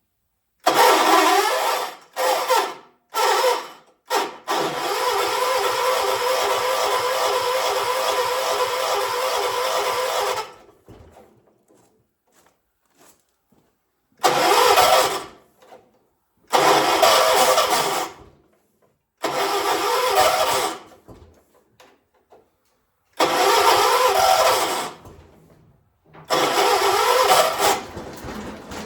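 A 1976 John Deere 300 garden tractor's engine being cranked over by its starter in repeated attempts without starting: three quick bursts, then one long steady crank of about six seconds, then five shorter cranks of a second or two with pauses between. This is a hard start.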